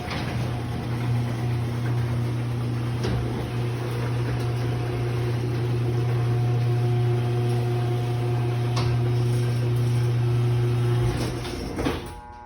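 Electric garage door opener motor running with a steady low hum and a few light clicks, then shutting off about a second before the end. The opener is old, and the owner thinks its motor is wearing out.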